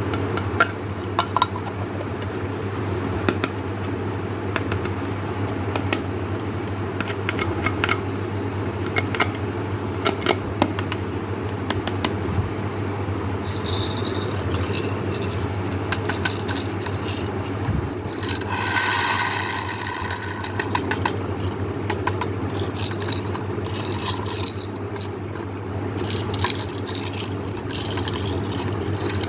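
Small hard-shelled candies clattering and rattling against one another and a hard container as they are poured and handled, many quick clicks, over a steady low hum. A few seconds past the middle, a high squeaky tone joins in for a couple of seconds.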